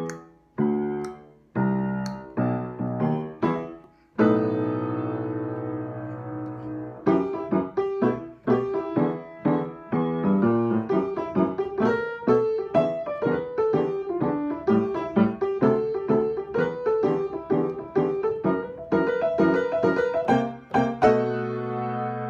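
A piano played solo. A few short chords with brief breaks open the passage, then a long held chord, and from about seven seconds in a quick, steady stream of notes runs on.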